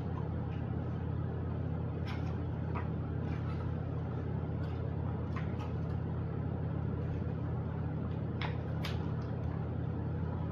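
Steady low background hum, with faint paper rustles and soft taps as a hardcover picture book is opened and its pages are turned, the clearest about two seconds in and again near the end.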